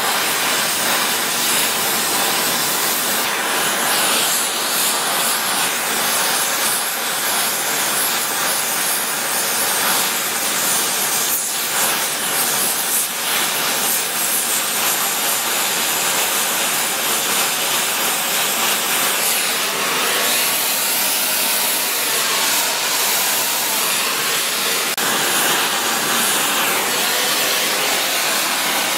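Gas welding torch flame hissing steadily while bronze filler is melted onto cast iron in a braze-weld repair.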